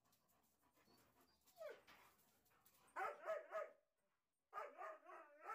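German shepherd barking: three sharp barks about three seconds in, then a second quick run of barks near the end.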